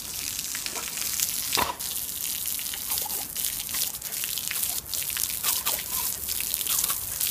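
A thin stream of water spraying and spattering onto wet pavement: a steady hiss with many small drips and splashes, broken up as a dog bites at the stream.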